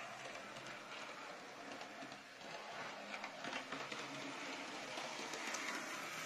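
Model Canadian Pacific diesel locomotive running on three-rail toy train track: a steady electric-motor whir and wheel rumble, with a few clicks about three seconds in.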